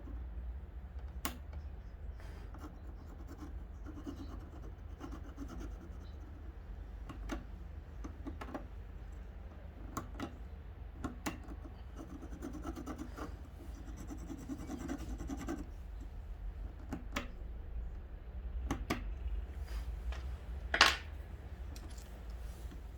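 Hand work on the worn reel seat parts of a fishing rod: scraping and rubbing on small parts, with scattered light clicks and one sharper click near the end.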